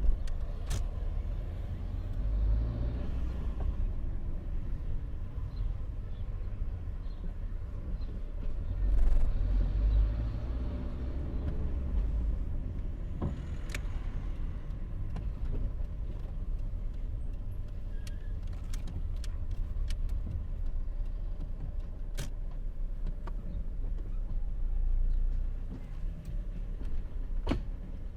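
A car on the move, a steady low rumble of engine and road that swells louder a few times, with several sharp clicks or knocks scattered through it.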